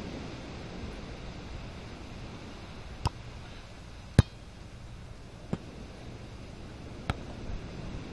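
A volleyball being struck by the players' hands and arms during a beach volleyball rally. There are four sharp hits, a second or a second and a half apart, the loudest about four seconds in, over a steady low background rumble.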